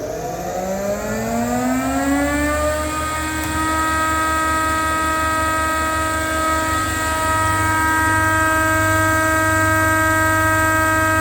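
SCM S630 E planer running up to speed: a whine that rises in pitch for about the first three seconds, then holds as a steady high whine over a low hum, growing slightly louder later on.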